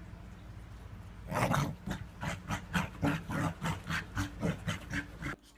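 A dog giving a rapid run of short, loud vocal sounds, about three or four a second, starting a little over a second in and cutting off suddenly near the end, over a steady low hum.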